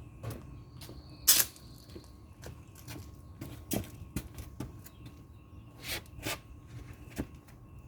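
Scattered light clicks and knocks of a small screwdriver and car parts being handled, with a sharp click about a second in as the loudest.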